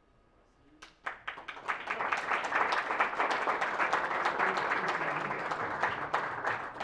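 Audience applauding: many hands clapping, starting suddenly about a second in after a brief quiet and going on steadily.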